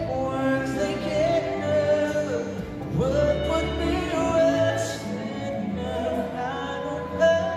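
Live pop band in an arena: male vocals singing a melody over acoustic guitar.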